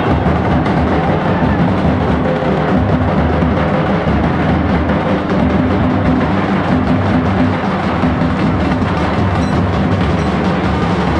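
A Nashik dhol group beating large barrel dhol drums with sticks in a loud, dense, driving rhythm that keeps up without a break.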